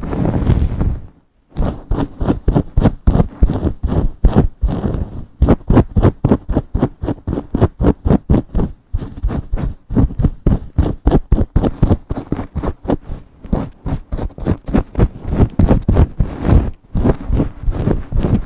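Long fingernails scratching and rubbing fast through hair against the scalp in a vigorous scalp massage, a quick run of rustling scrapes several strokes a second, with a brief pause about a second in.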